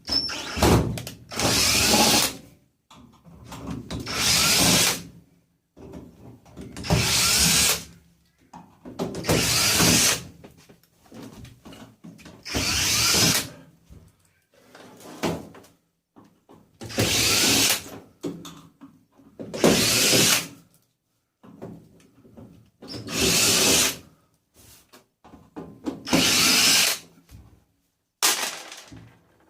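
Power drill run in about ten short bursts of a second or so, every few seconds, as screws are backed out while a tumble dryer is stripped, with quieter clatter of handling between bursts.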